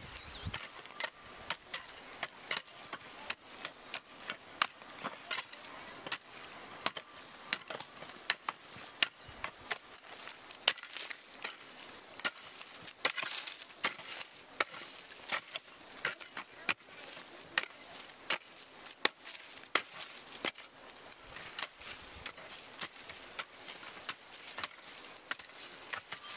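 Repeated sharp knocks or taps, irregularly spaced at about two to three a second.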